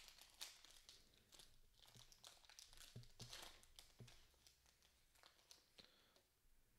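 Faint crinkling and tearing of a foil trading-card pack wrapper being torn open, with scattered small crackles as the cards are pulled out.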